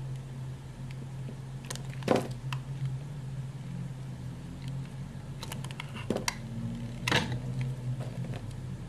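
Utility knife blade carving into a hard bar of soap: scattered sharp crunches and crackles as slices break away, loudest about two seconds in and again about seven seconds in, over a steady low hum.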